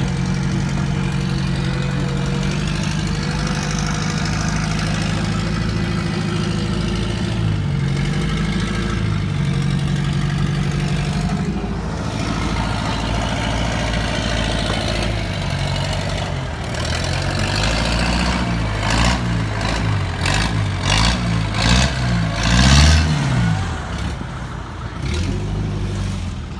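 Off-road 4x4's engine running at a steady pitch, then revved up and down repeatedly in the second half, with sharp knocks among the revs and the loudest rev near the end.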